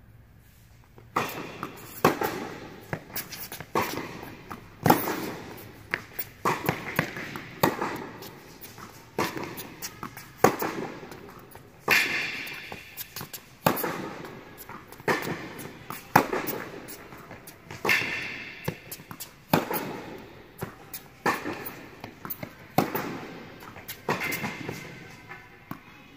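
Tennis balls struck by racquets and bouncing on an indoor hard court during a rally, a steady run of sharp pops that echo through the hall, one every half second to a second.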